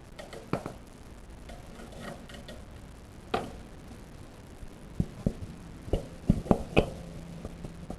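Sharp knocks and clicks of a lawnmower wheel being rocked on its axle, with a quick run of about six knocks near the end. The wheel still has a little play because the axle is worn.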